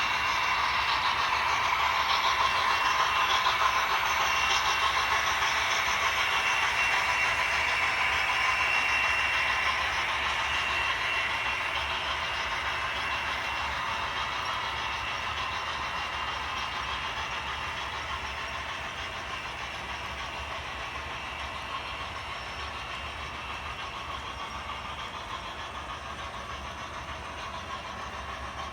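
HO scale model freight train running on the track, led by consisted model diesel locomotives. A steady mechanical running sound, loudest for the first ten seconds or so, then slowly fading as the train moves away.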